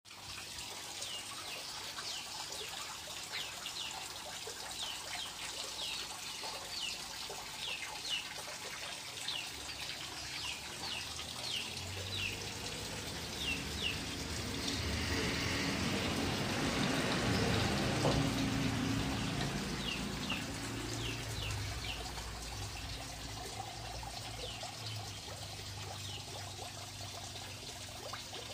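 Water trickling and draining from a perforated plastic basin holding crayfish, swelling to its loudest a little past the middle. Through it runs a string of short, high, falling chirps, about two a second, from birds.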